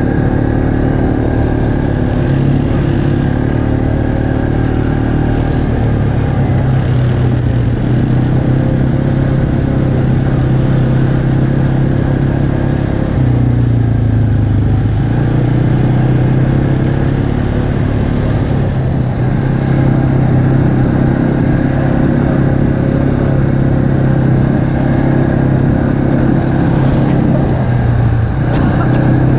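ATV engine running under way at a steady, moderate pace, its pitch dipping and rising a few times as the throttle changes.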